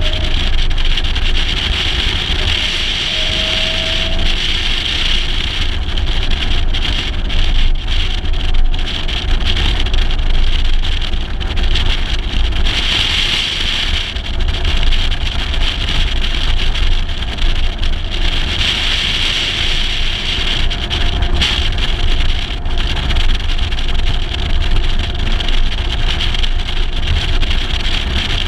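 Heavy wind and road noise on a camera mounted outside a moving 1956 Mercedes-Benz 300 SL, with the car's straight-six engine running faintly underneath.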